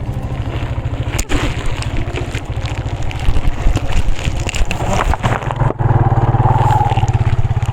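Motorbike engine running while riding, with a fast, even firing beat; it grows louder about six seconds in.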